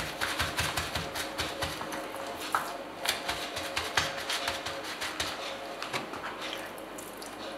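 Paper towel patting and rubbing a raw flounder dry on a plastic cutting board: a run of irregular soft taps and rustles.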